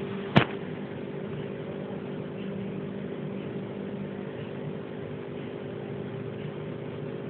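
A steady machine hum holding a few constant low tones, with one sharp click about half a second in.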